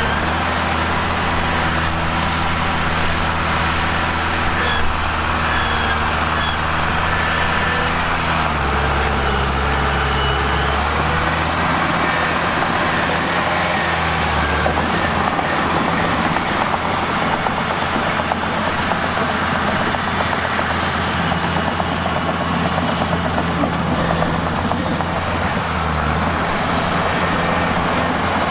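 Bulldozer's diesel engine running steadily at work, its note dropping about a third of the way in and shifting a few more times after.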